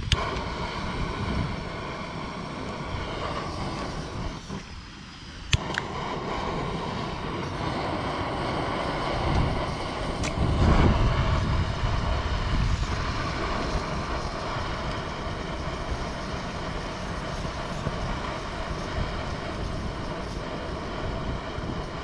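Handheld gas torch burning with a steady roar, used to relight a campfire that has gone out. It cuts out about four seconds in and comes back after a sharp click, with a louder surge around ten seconds in.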